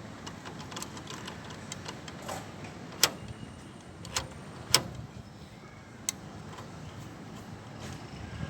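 A handful of sharp clicks and knocks from hand work on a van's rear door lock mechanism, the loudest about three and five seconds in, over a steady low background noise.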